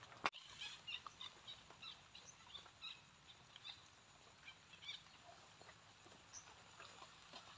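Near silence: faint rural outdoor ambience with scattered short, high chirps and ticks, and a single sharp click about a quarter-second in.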